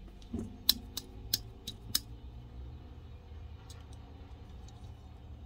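Fingernails clicking against a small diecast model car, an '82 Mazda RX-7, while prying at its opening hood: five sharp clicks about a third of a second apart, then a few fainter ticks about four seconds in.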